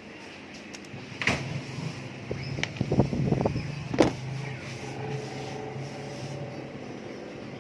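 Hands working on scooter wiring: a few sharp clicks and knocks, the loudest about four seconds in, over a steady low hum.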